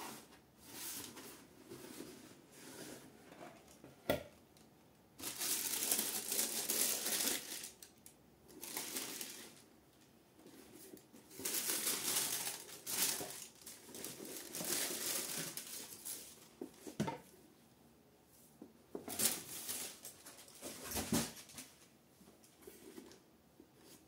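Tissue paper crinkling and rustling in several bursts as it is folded back from a cardboard shoebox, with handling of the box in between and one sharp knock about four seconds in.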